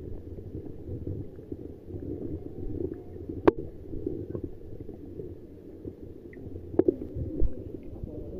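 Muffled underwater noise picked up by a Xiaomi Mi 11 Pro's microphone held under pond water: a low, dull rumble of moving water and handling, with a sharp click about halfway through and a couple more near the end.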